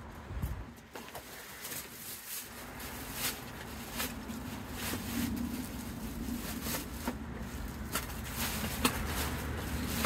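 Wind rumbling on the microphone with a steady low hum, and scattered clicks and knocks as the vacuum's parts and packaging are handled.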